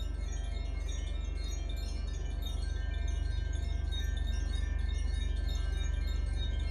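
Carillon chime being played: a continuous shimmer of many overlapping high, bell-like ringing notes. A steady low hum runs underneath.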